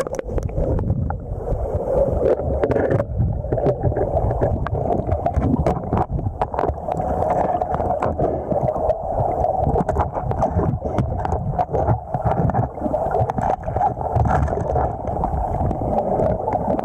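Muffled rushing river water moving steadily around the camera, with many small sharp clicks scattered throughout.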